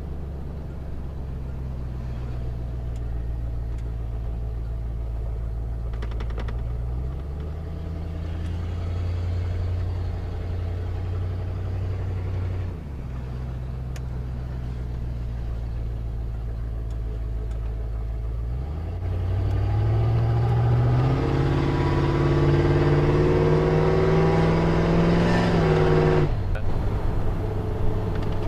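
Carbureted 351 Windsor V8 of a 1991 Ford F250 pulling the truck along, its note climbing under acceleration and then dropping suddenly at the E4OD automatic's upshifts, once about midway and once near the end after the loudest, hardest pull. The shifts are hard, which the driver suspects is low transmission fluid.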